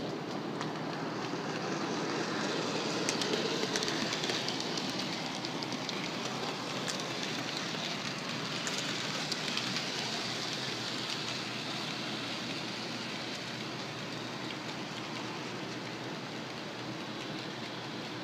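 Hornby OO-gauge A4 Mallard model locomotive and its coaches running on the track: a steady whirring rumble of motor and wheels on rail with a few light clicks, loudest a few seconds in and slowly fading.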